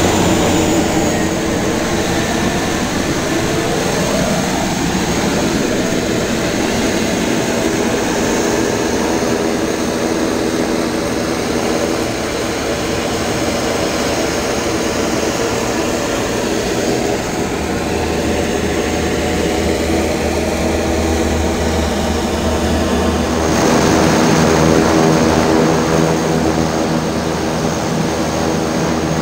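An aircraft engine running steadily, getting louder for a few seconds near the end.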